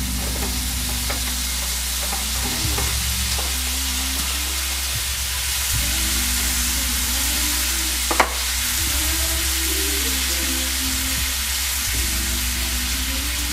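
Shrimp sizzling steadily in a hot oiled frying pan with kale, stirred with a spatula. There is one sharp knock about eight seconds in.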